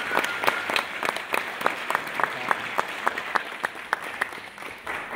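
Audience applauding, with one nearby pair of hands clapping loud and evenly through the middle; the applause thins out toward the end.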